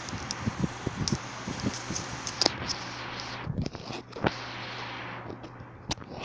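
Close handling noise of a handheld camera: rubbing, clicks and scrapes over a steady hiss and low hum that drops away about three and a half seconds in.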